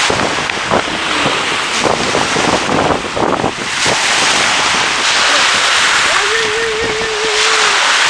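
Wind buffeting the microphone over the steady wash of sea surf, gusting in the first half. Near the end a drawn-out wavering tone sounds for about a second and a half.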